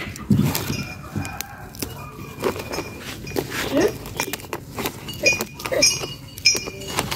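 Brazilian spinach stems snapping and leaves rustling as they are picked by hand, with many sharp clicks. Short farm-animal calls sound a few times, and repeated high chirps come in the second half.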